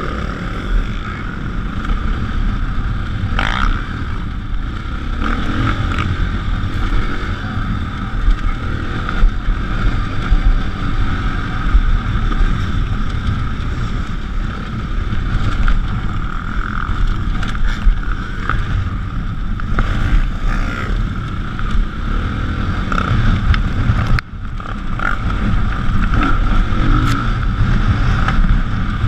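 Dirt bike engine running under way over a rough dirt trail, with wind noise on the microphone. The sound drops out briefly about three-quarters of the way through, then picks up again.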